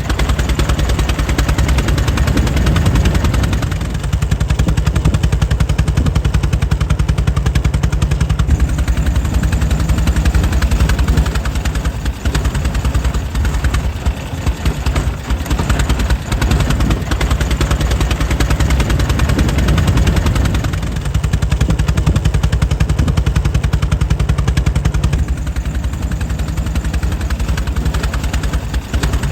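Air-cooled 1904 Mitchell engine running steadily, a fast, even train of firing beats with a few brief dips in level.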